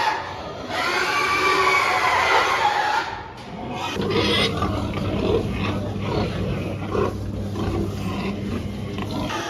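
Pigs grunting, with wavering higher calls near the start and a low steady drone under the second half.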